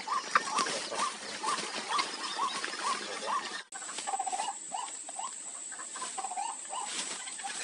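White-breasted waterhen calling: a run of short rising notes, about two a second. The calling breaks off abruptly a little past halfway and picks up again, now with a thin steady high tone behind it.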